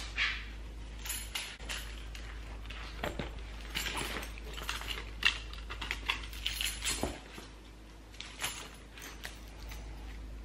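Packing a tote bag by hand: irregular rustles with small clicks and clinks as items go in and the bag's metal fittings are handled, one sharper click about five seconds in.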